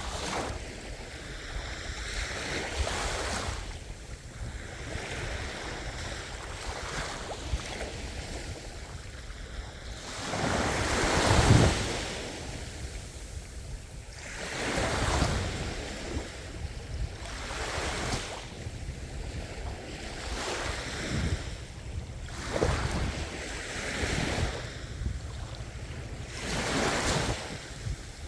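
Ocean surf: waves breaking and washing in, swelling and fading every few seconds, with the biggest wave about eleven seconds in.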